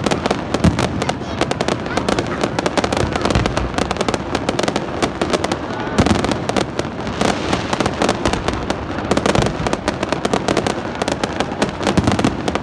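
Fireworks display: a dense, continuous string of bangs and crackles, with heavier bangs about six seconds in and near the end.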